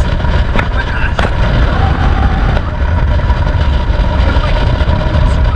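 Wind buffeting a phone's microphone on board a moving yacht: a loud, churning rumble with a faint steady drone underneath and a few light clicks.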